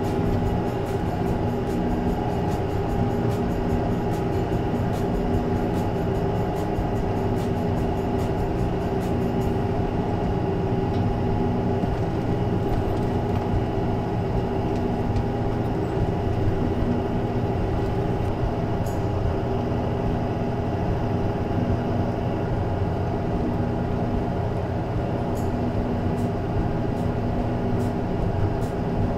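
Tractor and KUHN round baler running steadily while the baler picks up windrowed hay: an even mechanical drone with several steady tones over a low rumble.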